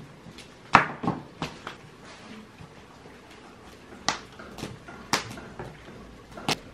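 A few separate sharp clicks and knocks at uneven intervals over a faint background hum of surroundings.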